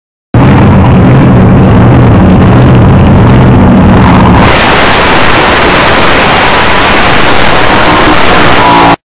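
Fuel altered drag car's engine running loud with an unsteady, lumpy note. About four seconds in, the sound turns harsher and fuller as it goes to full throttle for a burnout. It is loud enough to overload the recording.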